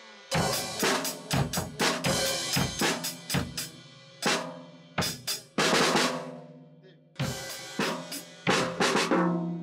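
Acoustic drum kit played with sticks: drum and cymbal strikes in short practice phrases, starting about a third of a second in and broken by two brief pauses, the cymbals ringing on after the hits.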